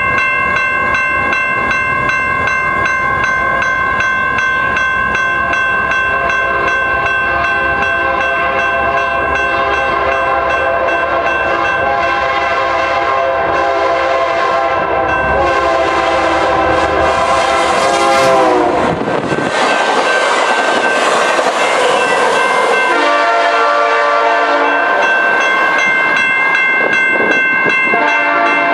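BNSF locomotive air horn sounding as the train approaches a grade crossing at speed, its pitch dropping about eighteen seconds in as the locomotive goes by. Then comes a few seconds of rushing wheel noise from the passing train, with steady ringing tones again near the end.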